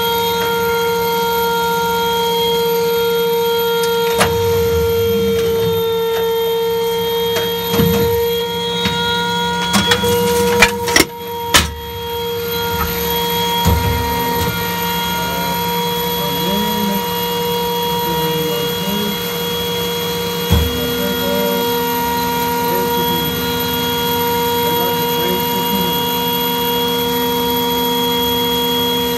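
Steady hum of an M1 Abrams tank's turret systems heard from inside the turret, made of several constant whining tones. A cluster of sharp metallic knocks and clanks comes about ten to twelve seconds in, and just after twenty seconds another knock is followed by a further low hum joining in.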